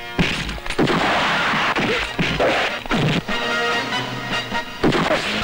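Film fight sound effects: a string of about half a dozen sharp punches and smashing hits over a loud background score.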